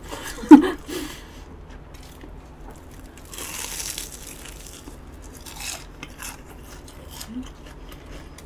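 Close-miked eating sounds: small clicks of utensils against a dish, with a crunchy, rustling burst about three and a half seconds in and a smaller one near six seconds. A brief hum-like vocal sound about half a second in is the loudest moment.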